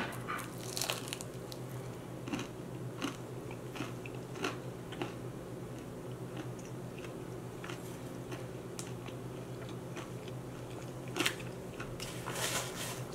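A person biting into a crisp fried pastelillo (Puerto Rican turnover) and chewing it, with short crackly crunches scattered through and a louder crunch near the end.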